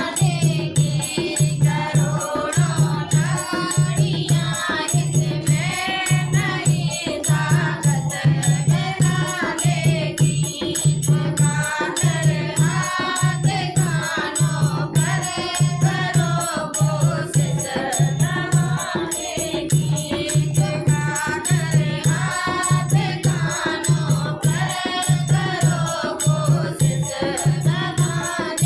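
A group of women singing a Hindi devotional bhajan, with a low drum beat about once a second and rattling hand percussion.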